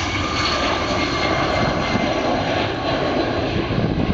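Engines of a Delta Boeing 757 jetliner running at takeoff power as it lifts off and climbs away: a steady, loud roar with a faint high whine above it.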